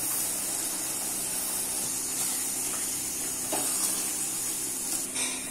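Thick chicken curry simmering in a steel pot on a gas stove, a steady bubbling, sizzling hiss, with a faint scrape of a ladle about three and a half seconds in.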